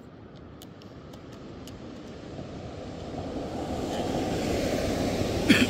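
Engine noise of a passing vehicle swelling steadily over several seconds and then holding, with a few faint ticks in the first couple of seconds and a brief sharper sound near the end.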